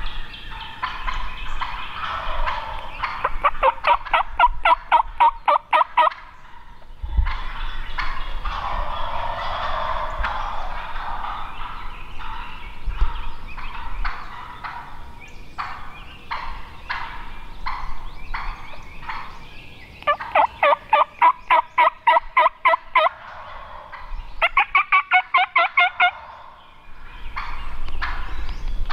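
Wild turkey gobblers gobbling: three loud bouts of fast rattling calls, the first a few seconds in and two more close together near the end.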